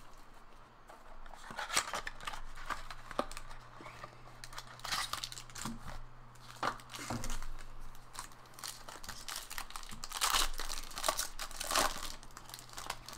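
Plastic and foil wrapping of a trading-card pack being torn open and crinkled by hand, in irregular rustling bursts that are loudest near the end.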